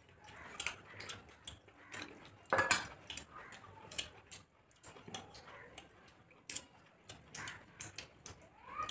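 Eating sounds of two people eating rice and curry with their hands: irregular wet clicks and smacks of chewing, loudest about two and a half seconds in.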